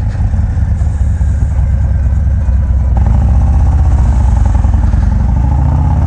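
Harley-Davidson FXDR's Milwaukee-Eight V-twin, bumped to 117 cubic inches, running loud through a Bassani Road Rage 2-into-1 exhaust as the bike is ridden. The note grows louder about halfway in as the bike pulls.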